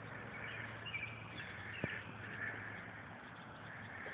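Evening chorus of calling animals, swelling and fading about once a second, with a few higher chirps about a second in and a single sharp click just before the middle.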